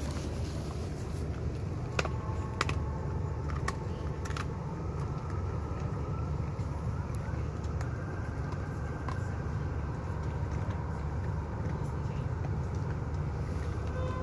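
Steady low rumble of background traffic, with a few sharp clicks about two to four and a half seconds in.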